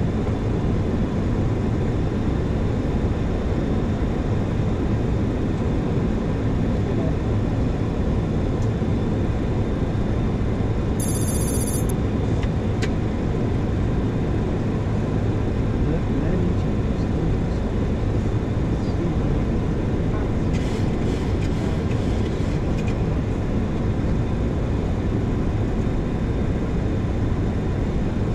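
Steady rushing flight-deck noise of a Boeing 737-800 on final approach with landing gear down and flaps at 30. A brief high electronic chirp sounds about eleven seconds in.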